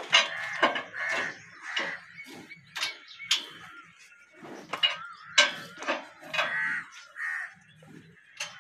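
Hand-cranked chain winch on a wheeled lifting frame, clicking and clanking irregularly as it is wound to hoist a downed water buffalo, with metal-on-metal knocks from the frame and chain.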